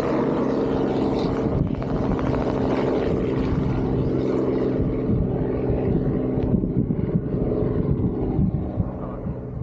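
An engine running with a steady, even hum, dropping in level near the end.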